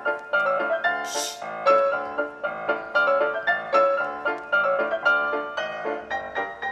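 Background piano music: a light, quick run of notes. A short burst of hiss about a second in.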